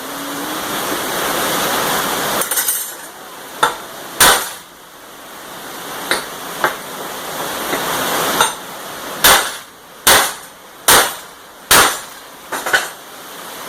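Small sledgehammer striking steel parts of a manual tire changer: about nine sharp metallic blows at irregular intervals, each ringing briefly, over a steady rushing noise.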